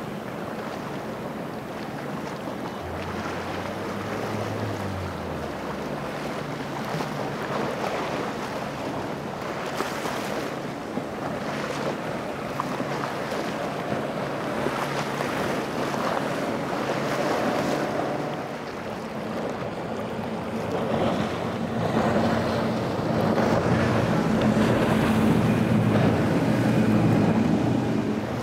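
Motorboat engines running at speed through choppy water, with waves and spray hissing and wind buffeting the microphone. A louder boat engine builds up near the end.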